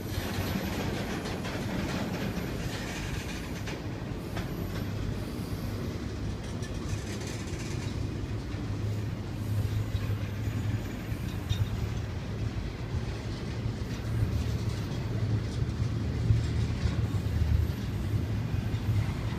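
Florida East Coast Railway intermodal freight cars (double-stack container cars and trailer flats) rolling past at a crawl, about 7 mph. Their wheels on the rails make a steady low rumble with scattered clicks, a little louder in the second half.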